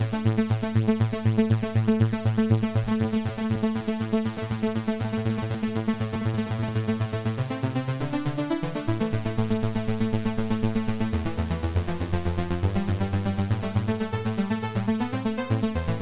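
Cherry Audio DCO-106 software synthesizer, an emulation of the Roland Juno-106, playing its 'JP4 Arp' preset: a fast, evenly pulsing arpeggiated synth pattern over a bass line. The notes change about halfway through, and a deeper bass comes in later, while the filter cutoff and delay time are being adjusted.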